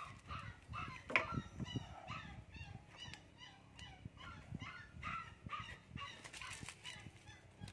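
Faint animal calls: a quick run of short, high calls repeating a few times a second, with a few light knocks among them.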